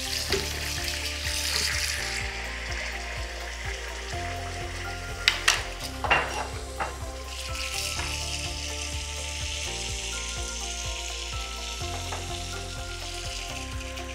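Water running from a bathroom mixer tap into a sink, a steady hiss that is strongest near the start and again from about eight seconds on, over background music. A few sharp clicks come about five to six seconds in and are the loudest sounds.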